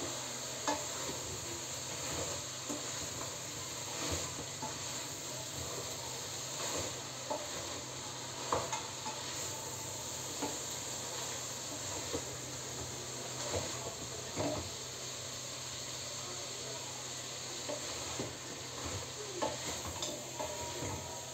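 Beans sizzling as they fry in a pot with onion and tomato and pepper paste, stirred with a spoon that knocks and scrapes against the pot now and then.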